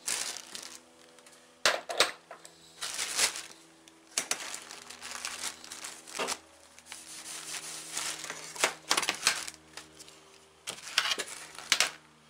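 Clear plastic bag crinkling and rustling while a plastic case for digital calipers is handled and opened, with scattered clicks and knocks from the case. A steady low hum runs underneath.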